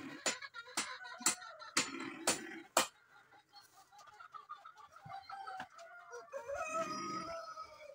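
Domestic chickens clucking, with a rooster crowing near the end. For the first three seconds there are also sharp clicks, about two a second.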